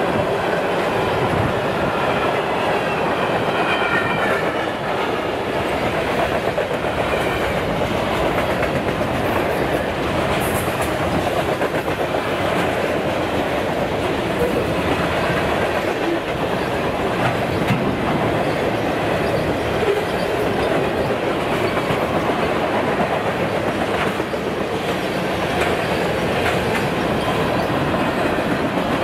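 Freight train cars rolling past close by: steel wheels clacking over rail joints over a steady rumble. A faint wheel squeal is heard in the first few seconds.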